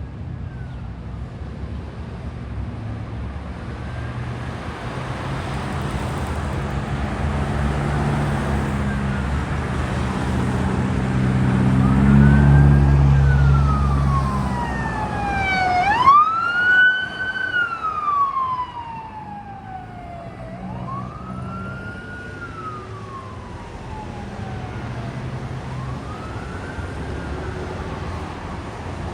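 Emergency medical vehicle siren wailing in slow rise-and-fall cycles, with the vehicle's engine swelling as it drives past about halfway through. The siren is loudest just after the pass and then fades as it moves away.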